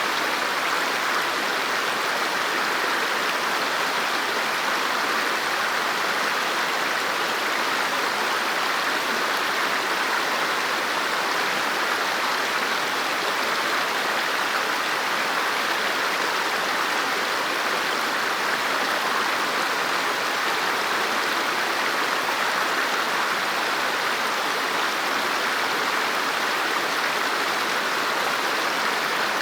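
River water flowing and rushing over rocks, a steady even rush.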